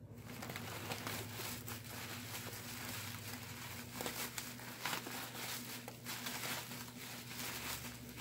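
Bubble wrap and packing wrap crinkling and rustling in irregular handfuls as a bottle is unwrapped by hand, over a faint steady low hum.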